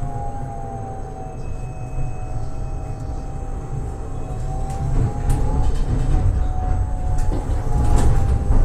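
Prague tram running along the track, heard from inside at the front: a low rumble of wheels on the rails with a steady whine over it and a few sharp clicks, growing louder near the end.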